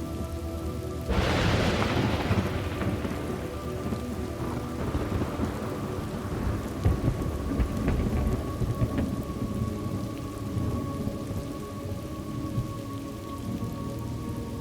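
Thunderstorm ambience: steady rain, with a thunderclap about a second in that rolls on as a low rumble and fades over several seconds.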